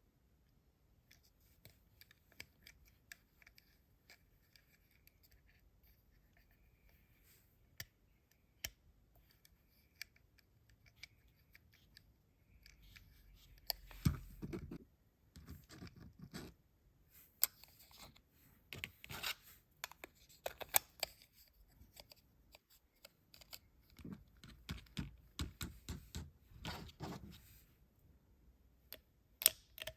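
Close-up handling and opening of toy packaging: scattered small clicks and scratches at first, then louder bouts of rustling and scraping about halfway through and again near the end.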